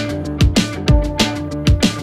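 Background music track with a steady drum beat over sustained pitched notes.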